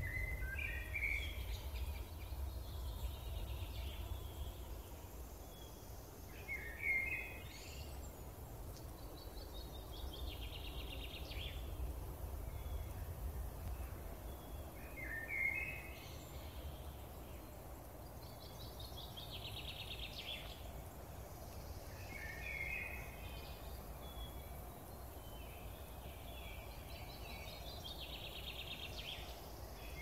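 Wild songbirds singing in the forest: short phrases every few seconds, each a few opening notes followed by a fast trill, over a low steady rumble.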